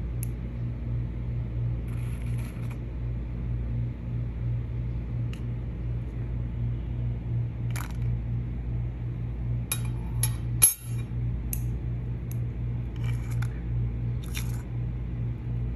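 Metal tongs clicking and clinking against a metal incense burner as oud wood chips are set on the charcoal: a few light, scattered clinks, one sharper one partway through, over a steady low hum.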